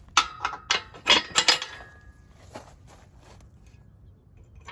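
Steel parts of an engine hoist (cherry picker) being handled: about six sharp metallic clanks with a brief ring in the first two seconds, then a few fainter knocks.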